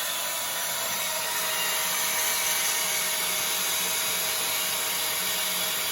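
Handheld power cutting tool slicing through 2x4 rectangular steel box tubing, a steady high-pitched cutting noise with a constant motor tone that does not change through the cut.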